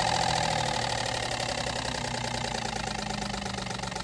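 A paper strip held against the three blades of a spinning homemade cardboard propeller fan, slapped by each blade in quick succession so that it rattles like a three-cylinder kei car engine idling. It grows gradually quieter.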